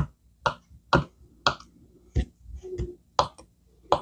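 Knife chopping hard-boiled eggs on a plastic cutting board: sharp knocks of the blade against the board, about two a second, with a short pause a little past the middle.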